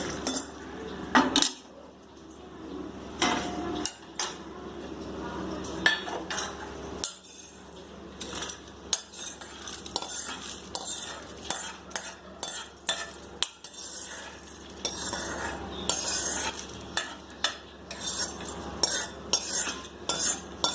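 A metal spoon scraping and clinking against a kadai as roasted urad dal, chana dal, coriander seeds and dried red chillies are stirred and scooped. It makes many irregular sharp clicks and scrapes.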